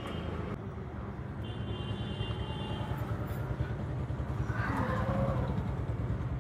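Street traffic, with a vehicle engine's steady low rumble throughout. A short high tone sounds about two seconds in, and a brief louder sweep about five seconds in.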